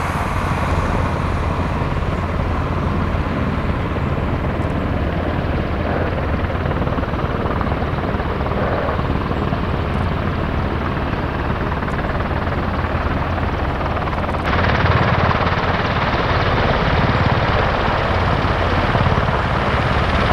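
Helicopter running, a steady dense rotor and turbine noise that gets abruptly louder and brighter about three-quarters of the way through.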